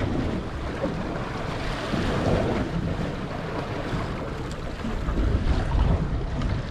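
Wind buffeting the microphone over water splashing and sloshing against the hull of a small fishing boat at sea, rising and falling unevenly.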